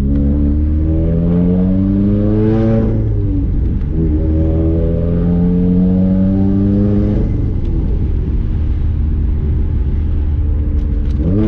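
Subaru flat-four engine pulling hard through the gears, heard from inside the car: the revs climb, drop at a shift about 3 seconds in, climb again and drop at another shift about 7 seconds in, then start rising again near the end. This is a test pull after new spark plugs, to check whether the misfire is gone.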